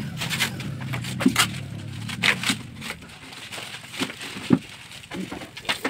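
Clear plastic wrapping crinkling and rustling in irregular crackles as it is pulled off new chairs.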